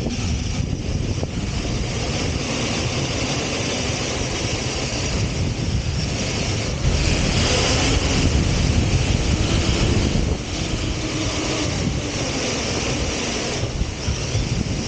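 An RC truck driving fast over desert sand, heard from a camera riding on it: wind rushes over the microphone above the motor and the tyres churning sand. The noise swells about seven seconds in and eases about three seconds later.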